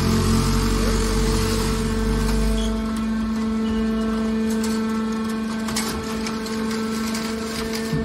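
Hydraulic scrap-metal baler running with a steady motor-and-pump hum while its ram pushes a compressed bale of scrap sheet metal out of the discharge door. A heavier low rumble fades about three seconds in, and a few short metallic knocks follow.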